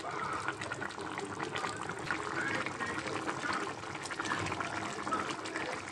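Rohu fish curry boiling in a pan, bubbling with a steady stream of small pops, the gravy near ready.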